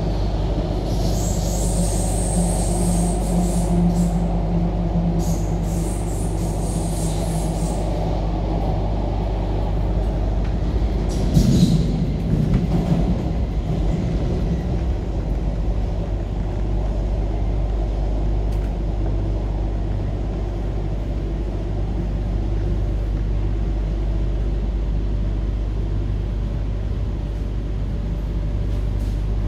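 MTR K-Train electric multiple unit heard from inside the passenger car, running with a steady low rumble of wheels on rail and a motor hum. A high whine sounds over the first several seconds, and there is a brief louder rattle about eleven seconds in. Near the end the train is pulling into a station.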